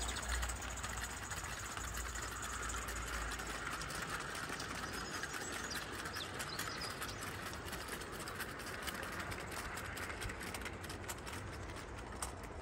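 O gauge live steam model of an LNER Q6 0-8-0 locomotive running on the track: a steady mechanical clatter with many small clicks.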